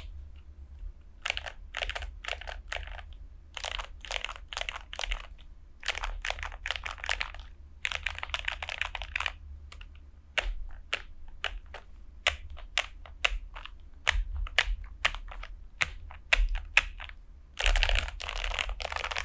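Typing on a Tester68 mechanical keyboard with Gateron Milky Yellow Pro linear switches. Short bursts of keystrokes come first, then single key presses one at a time, then fast continuous typing near the end.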